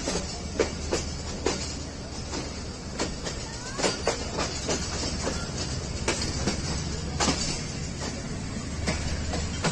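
Wheels of a Pakistan Railways passenger train clacking over rail joints and yard points as it leaves the station, with uneven clacks over a steady low rumble. A faint wheel squeal comes briefly about four seconds in.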